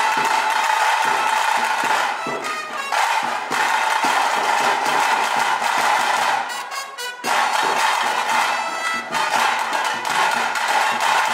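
Loud music with a brass-like horn line, which thins out briefly about six to seven seconds in.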